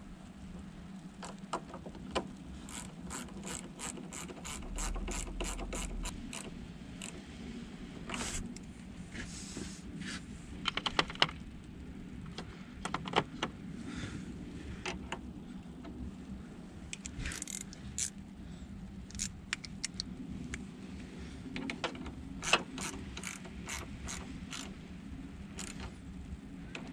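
Ratchet wrench clicking in quick runs, with pauses between them, as a battery cable terminal is tightened onto the battery post.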